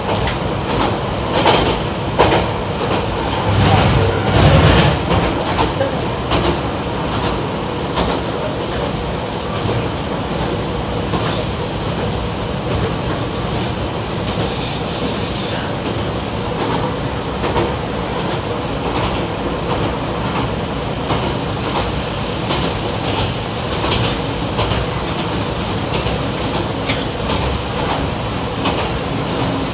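Running noise inside a Yamagata Railway YR-880 light diesel railcar on the move: a steady rumble of the diesel engine and the wheels on the rails, with scattered clicks from the wheels over the track. It grows louder and heavier for a few seconds near the start.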